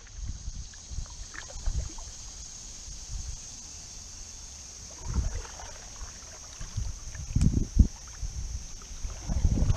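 Paddling an aluminum canoe on a calm river: paddle strokes swishing through the water, with irregular low thumps and rumbles from the strokes, the hull and wind on the microphone, over a steady high-pitched buzz.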